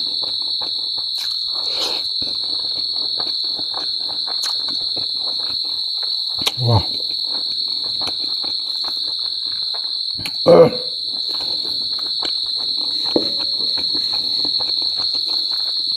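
A steady high-pitched insect trill runs throughout, over close, wet chewing and mouth clicks from someone eating. Two short louder sounds come about six and a half and ten and a half seconds in.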